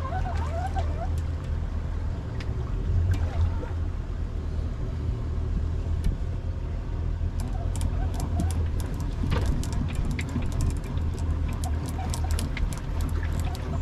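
Boat's outboard engines idling with a steady low hum. A scatter of sharp clicks and ticks comes in over the second half.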